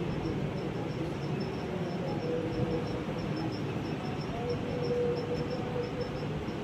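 Steady low rumbling background noise, with a rapid, regular high-pitched chirping running over it.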